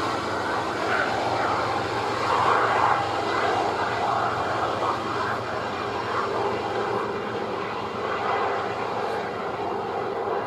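Distant drone of diesel locomotive engines, steady and slowly fading.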